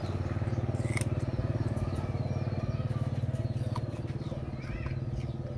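A small engine running steadily nearby, a low even pulsing drone. A few short high chirps come in near the end.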